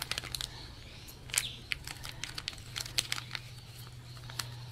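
Small plastic packet crinkling and crackling in the fingers as it is opened to get the cotton wool out, a scatter of quick sharp crackles. A low steady hum runs underneath.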